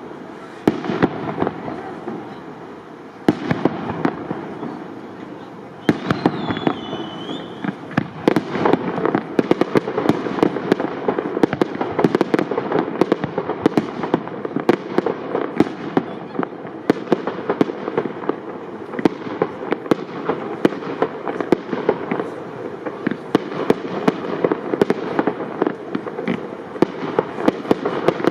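Aerial fireworks shells bursting in a rapid string of bangs. About eight seconds in, the bangs thicken into a near-continuous barrage with crackling.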